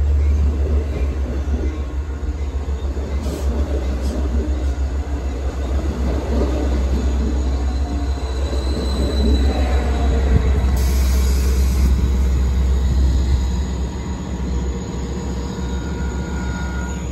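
Long Island Rail Road bilevel passenger train passing close by at speed: a steady rumble of wheels on rail over a deep low drone, dying down near the end.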